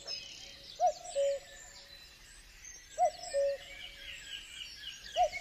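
Cuckoo's two-note call, a higher note dropping to a lower one, heard three times about two seconds apart, over faint high twittering of small birds.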